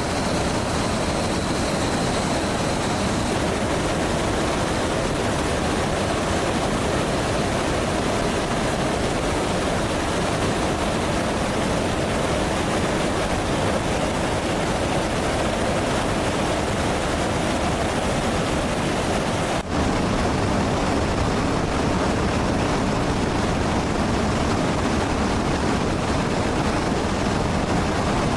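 Steady rushing roar of jet aircraft noise, even throughout, with a brief drop about twenty seconds in.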